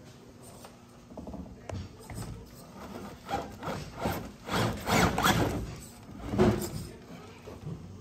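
1/10-scale RC rock crawler's electric motor and geared drivetrain whirring in stop-start bursts as it climbs, with its tires and chassis scraping over the rocks.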